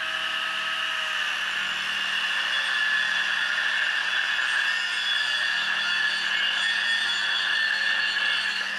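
Abrasive cut-off disc on an angle grinder cutting through steel angle bar, a steady high grinding whine under load.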